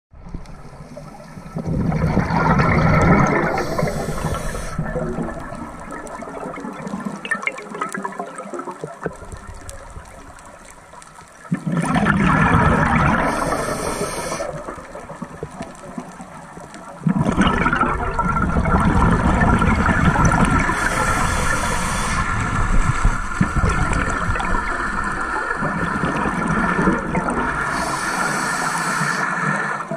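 Scuba breathing heard underwater: gurgling rushes of exhaled regulator bubbles come in bursts a few seconds long with quieter spells between them, and the last burst runs on much longer.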